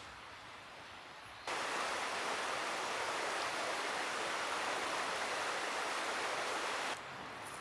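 A steady rushing noise with no separate events in it. It jumps abruptly louder about a second and a half in and drops back abruptly near the end.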